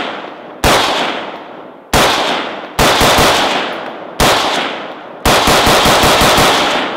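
Custom AR-15 with a 5.56 mid-length barrel firing semi-automatically. It fires four single shots roughly a second apart, then a rapid string of about eight shots in just over a second near the end. Each shot trails off in a long echo.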